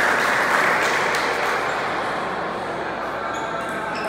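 Onlookers clapping and talking after a point, the noise slowly dying away. Near the end come a few light clicks of a table tennis ball.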